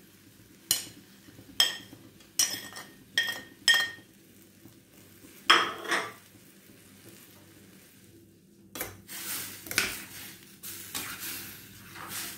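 A steel spoon clinks and scrapes against a glass plate about six times as chopped dates are pushed off it into a steel kadai, with a louder knock about six seconds in. From about nine seconds a steel ladle stirs and scrapes the dates through the hot pickle in the kadai, with a light sizzle.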